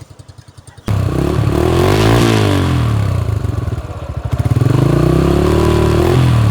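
Motorcycle engine revving through an aftermarket exhaust. The sound jumps in loud about a second in, rises and falls in one rev, then climbs again and holds briefly before dropping back.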